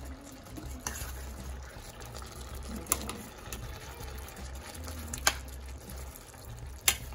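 Curry sauce simmering in a stainless steel pan while a spoon stirs through the soy chunks, with four sharp clicks of the spoon against the pan.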